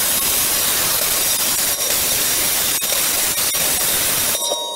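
A PrimeWeld CT-520D plasma cutter cutting through thick propane-tank steel: a steady loud hiss of the air jet and arc, with a faint steady whine in it. It breaks off briefly near the end, then picks up again.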